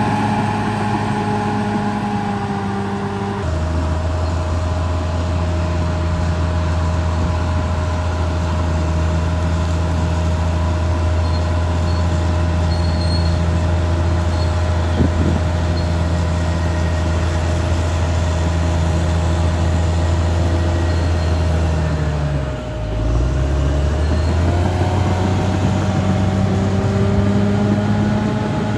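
Caterpillar D6R XL bulldozer's diesel engine running steadily. The engine note shifts abruptly about three and a half seconds in, and near the end its pitch sags briefly and comes back up.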